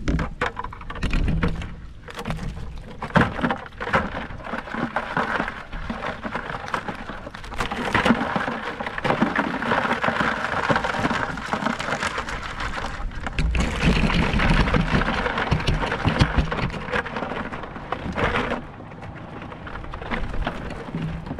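Wire crab pot being shaken and tipped to empty out blue crabs: a dense crackling clatter of crabs and mesh, with water dripping and spattering off the trap. It is loudest in the middle and eases near the end.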